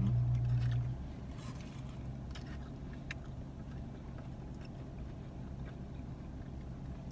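Steady low hum of a running car, heard inside the cabin, that drops in level about a second in. A few faint clicks of chewing and eating sit over it.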